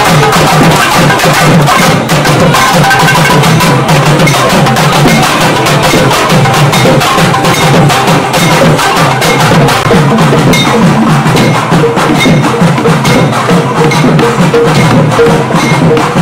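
Loud percussion music: dense, fast drumming with sharp stick strokes that runs on without a break.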